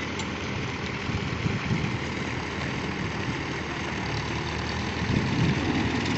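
Diesel tractor engines running at idle, with the engine sound growing louder about five seconds in as the tow rope between the two tractors is pulled taut.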